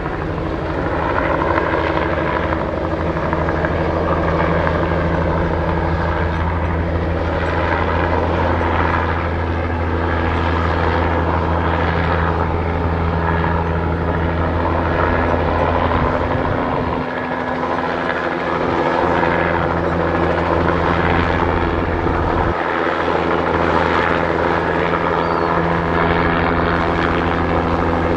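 Bell 206 JetRanger helicopter flying low overhead: steady rotor and engine noise. The low rumble briefly drops away twice in the second half.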